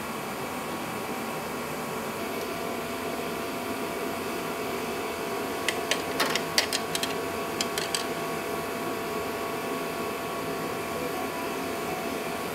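Steady mechanical hum with several held tones throughout; about six seconds in, a quick run of sharp clicks and taps lasting about two seconds as a hose clamp is worked onto a rubber hose at the engine.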